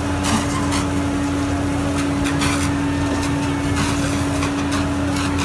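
Fire engine pump running steadily, a constant drone with one held hum, under the hiss of high-pressure hose streams spraying water.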